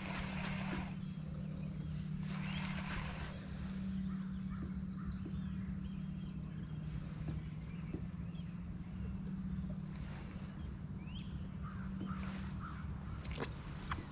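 Electric bow-mounted trolling motor humming steadily, shutting off near the end. A bird calls faintly now and then, and there are two short rushes of hiss in the first few seconds.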